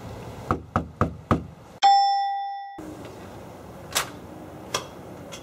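Knuckles knocking four times in quick succession on a front door, then a single bell ding that rings out for about a second and cuts off abruptly. A couple of sharp clicks follow near the end.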